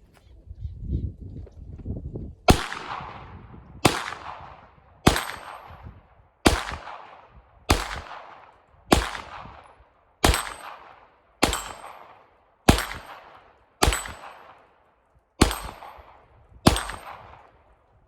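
Glock 17 9mm pistol firing twelve steady, evenly paced shots about a second and a quarter apart, each echoing away, with a high ring after several of them from hits on the steel plates of a dueling tree. A low rumble comes before the first shot.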